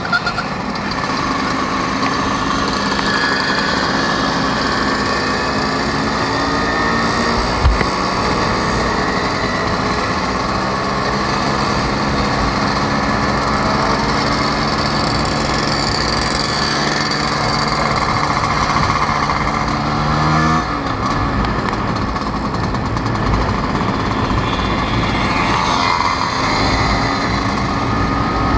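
Vespa scooter engine running under way, heard from on board the moving scooter. Its pitch climbs steadily for several seconds and then drops suddenly about two-thirds of the way in, with a single knock about a quarter of the way in.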